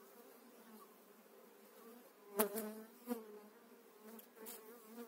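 Honeybees buzzing over an opened hive in a steady hum, with a few sharp knocks of a metal hive tool against the wooden frames, the loudest about halfway through.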